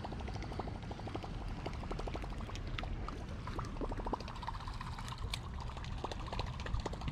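Water splashing and trickling in a steady, irregular patter of small drops, over a low rumble of wind on the microphone.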